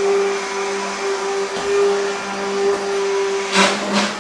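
Hand-held immersion blender running steadily in a pot, puréeing beetroot soup with coconut milk: a steady motor whine over a churning rush, with a brief louder rush near the end.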